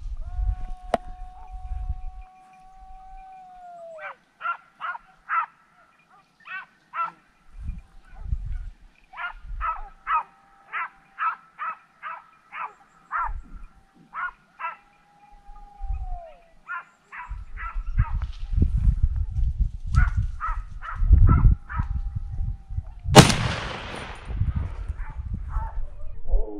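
Hunting dogs giving tongue in the scrub on a boar drive: runs of short barks at about two a second, broken by long drawn-out howls that drop off at the end, the sign of hounds working a scent or a boar. About 23 seconds in, one loud gunshot cracks out and echoes away.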